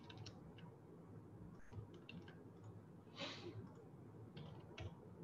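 Near silence broken by faint, scattered clicks from a computer mouse, with one short soft rushing sound about three seconds in.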